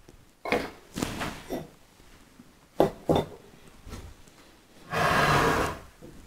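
Solid-wood joint pieces handled on a wooden workbench: a few short wooden knocks, then a louder wood-on-wood sliding scrape lasting under a second near the end.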